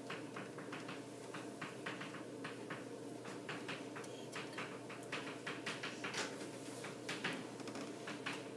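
Chalk tapping and scraping on a chalkboard as words are written: a quick, uneven string of short clicks and scratches, a few each second, over a steady low room hum.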